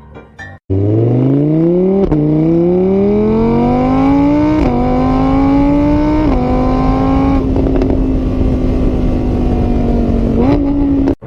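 An engine accelerating through the gears. Its pitch rises, then drops back at each of three gear changes, before it settles to a steady note; it cuts off suddenly near the end.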